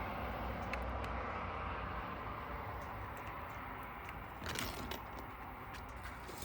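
Steady background rumble, slowly fading, with scattered light clicks and one brief louder scrape about four and a half seconds in.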